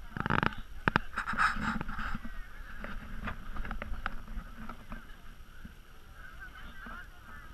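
Distant shouting voices from a crowd, with several knocks and short bursts of rough noise in the first two seconds.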